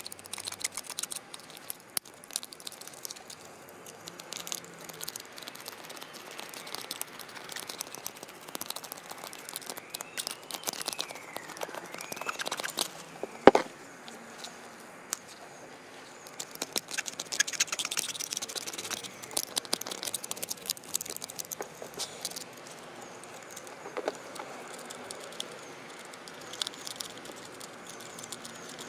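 Small metal clicks and clinks of a Shimano Crane GS rear derailleur being handled and taken apart with hand tools, with one sharp, louder knock about halfway through.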